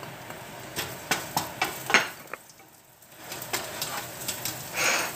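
Minced garlic sizzling in hot oil in a nonstick frying pan, with a wooden spatula scraping and knocking against the pan as it is stirred. There are several quick knocks in the first two seconds, a brief lull in the middle, and stirring again toward the end.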